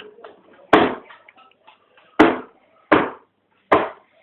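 Four sharp knocks on a hard surface, spread out from about a second in and each dying away quickly.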